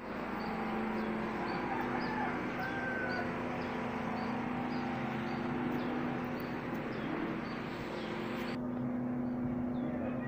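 Outdoor background with a steady low hum and a short, high chirp repeating about twice a second, typical of a bird calling.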